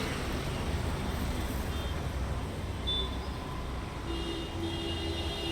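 Street traffic rumbling steadily, with a vehicle horn starting about four seconds in and held.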